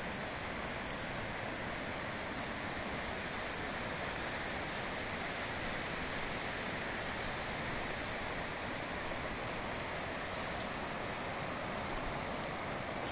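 A river running over a stony bed: a steady, even rush of water.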